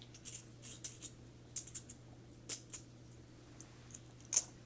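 Half-dollar coins being picked through by hand: a scatter of light, irregular clicks and taps, with one sharper click near the end.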